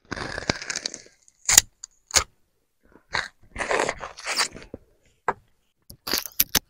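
Sugarcane being bitten and its rind torn off with the teeth: irregular crunching and sharp cracking of the fibrous stalk, with short gaps between bites.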